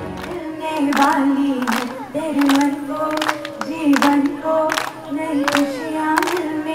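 A woman singing while a group claps hands in time, a steady beat of roughly one clap every three quarters of a second.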